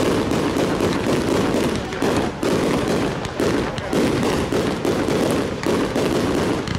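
Aerial fireworks firing a rapid, nearly unbroken barrage of shell bursts and reports, with only brief dips between volleys. This is an Italian 'batteria alla bolognese' display.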